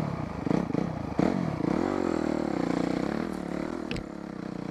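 Dirt bike engine, heard from on board, revving up and down as the bike rides a rough trail, with clatter and a couple of sharp knocks, the clearest about four seconds in.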